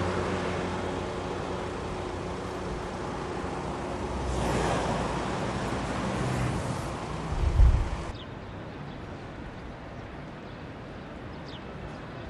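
Road traffic: cars and vans running along a multi-lane road, one passing more loudly about four to five seconds in, with wind on the microphone. A brief low thump comes just before eight seconds. Then the sound cuts to quieter outdoor ambience with a few faint high chirps.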